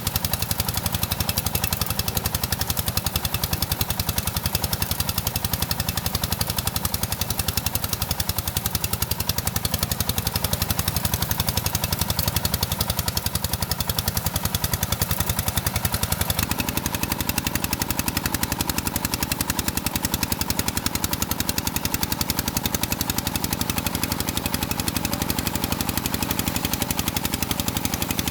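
An engine running steadily with a rapid, even knocking beat. Its note changes about two-thirds of the way through.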